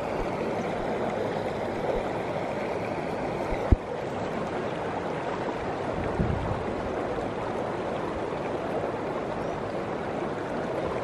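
Shallow rocky river rushing steadily over stones and boulders. A single brief thump about four seconds in.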